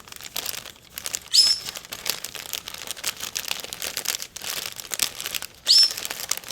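A plastic bag crinkling and rustling as small craft supplies (ribbon, lace, fabric, charms) are pushed back into it. Two short, high squeaks rising in pitch stand out, about a second in and near the end.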